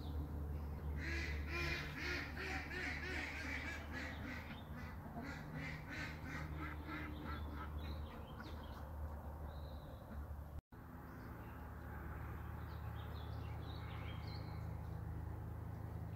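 Ducks quacking in a quick series of short calls over a steady low hum, fading to fewer, fainter calls after a brief dropout about ten seconds in.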